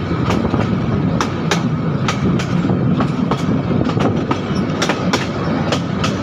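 Train running along the track with a steady rumble, its wheels clicking over rail joints in quick pairs, about two clicks a second.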